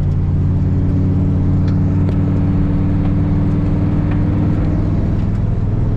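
Four-wheel drive vehicle driving along: a steady low drone of engine and road noise.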